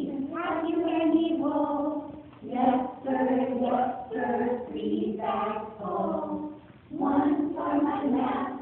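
Several voices singing a nursery song together in held, pitched phrases, with a brief pause for breath about seven seconds in.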